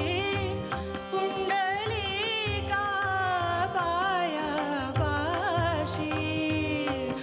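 A Marathi devotional bhajan (abhang) sung with many melodic turns and ornaments over a steady held drone and regular low drum beats.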